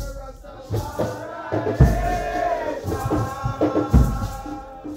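Nyahbinghi drumming and chanting: a group of voices singing a chant together over deep, irregular drum beats.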